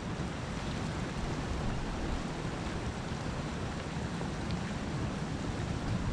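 Steady wash of the sea on a rocky shore, with a low, uneven wind rumble on the microphone.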